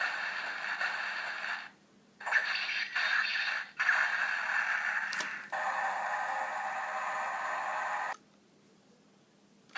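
DX Dice Saber toy playing its electronic sound effects through its small built-in speaker, in four stretches with short breaks between them. It stops about eight seconds in.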